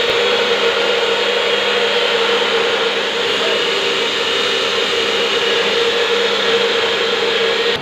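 A machine running steadily, a loud continuous whirring drone with a steady hum and no strikes or impacts. The sound changes abruptly near the end.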